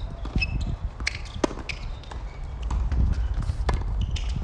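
Tennis ball struck by rackets and bouncing on a hard court during a rally: a string of sharp knocks, roughly one a second, over a low steady rumble.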